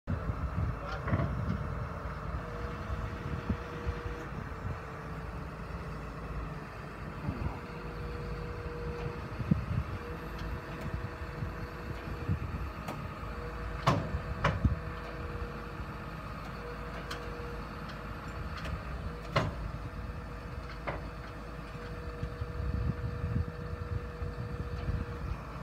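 Diesel engines of heavy equipment running steadily, with a thin steady whine and a low rumble that swells now and then, as a machine is offloaded from a steel step-deck trailer. A few sharp knocks sound midway through, about five seconds apart.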